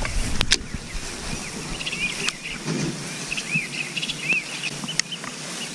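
A bird chirping over and over in short arched notes, with a few sharp clicks as a baitcasting reel is handled.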